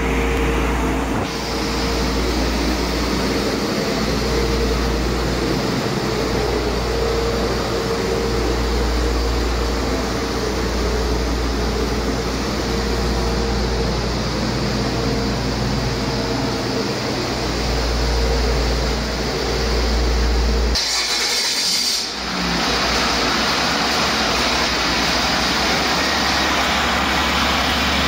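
2003 International DT466E inline-six turbodiesel running steadily on an engine test stand, a healthy used engine that runs excellent. About 21 seconds in there is a short burst of rushing noise and the low drone shifts.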